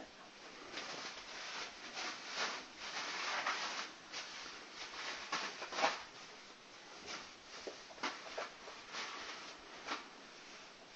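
Irregular scraping and crunching on ice and snow, with a longer sliding hiss about two to four seconds in and scattered sharp clicks, as a dog slides and scrambles on an icy slide.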